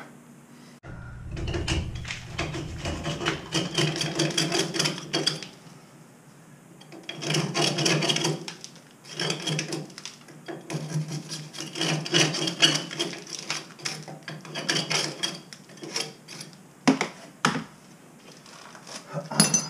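Hand scraper rasping against the tiled wall and the urinal's waste outlet in quick repeated strokes, in three runs of several seconds each with short pauses between, then a few separate knocks near the end.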